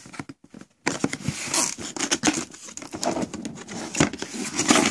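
Cardboard box being opened by hand: tape peeled from a flap, then cardboard rustling, crackling and scraping as the flap is pulled open, starting about a second in.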